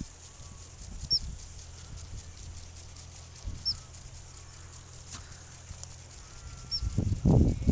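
Prairie dogs giving three short, high alarm chirps, a few seconds apart. A loud low rumbling on the microphone starts near the end.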